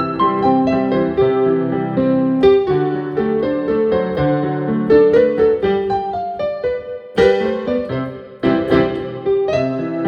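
Piano music: a steady flow of single notes and chords, with two brief pauses in the playing about seven and eight and a half seconds in.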